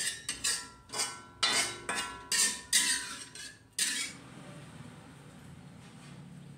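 A metal spatula clanking and scraping against a steel wok while fern greens are stir-fried, each stroke ringing briefly, about twice a second. About four seconds in the clanks stop, leaving a faint low hum.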